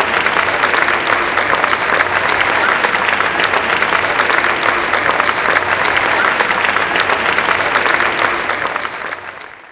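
Audience applauding: dense, steady clapping from many hands, fading out near the end.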